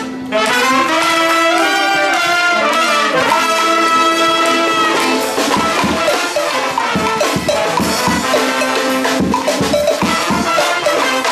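Brass band playing live: after a brief break at the start, trumpets and sousaphone hold long chords, then about halfway through a bass drum comes in with a steady beat under the horns.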